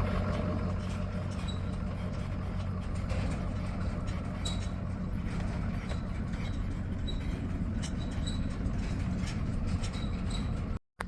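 A vehicle engine running steadily with a low hum, with faint short high-pitched sounds scattered over it.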